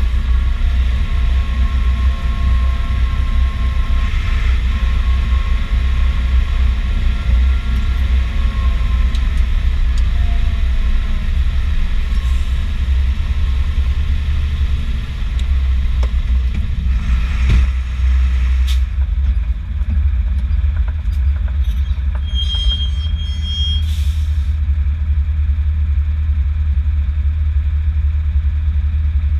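Fendt 512 tractor engine droning heard inside the cab, with faint whining tones that waver in pitch over it during the first third. About two-thirds of the way in the sound changes to a steadier, duller drone, and a brief high beep follows a few seconds later.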